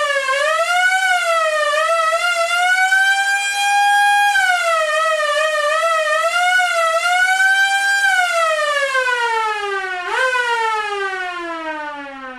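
Old-style police car siren wailing. Its pitch wavers up and down, climbs and holds, then falls. About ten seconds in it jumps briefly back up, then glides steadily down and fades as the siren winds down.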